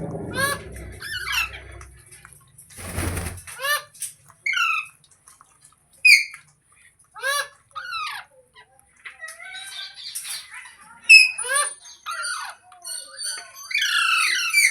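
Pet green parrot squawking in a long series of short, harsh calls, each sweeping down in pitch. A brief noisy rustle comes about three seconds in.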